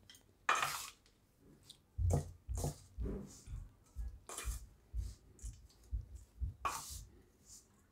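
A spoon stirring a crumbly rice-flour and ghee mixture in a stainless-steel bowl. It makes irregular scrapes and light knocks against the bowl, a dozen or so strokes, some louder than others.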